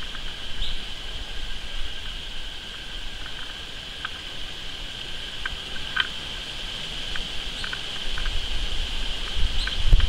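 A steady high-pitched insect drone, with a few short faint clicks and chirps scattered through it. Low wind rumble on the microphone builds near the end.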